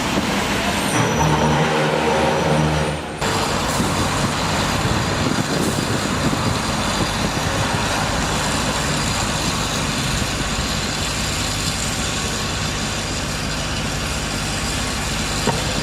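Heavy vehicle engine running with a low drone that cuts off abruptly about three seconds in, followed by a steady hum of engine and traffic noise.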